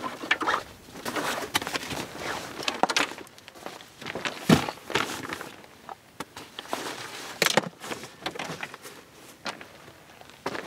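Camping gear being handled in the back of a Jeep: bags and fabric rustling, with scattered knocks and clunks. The loudest knocks come about four and a half seconds in and again at about seven and a half seconds.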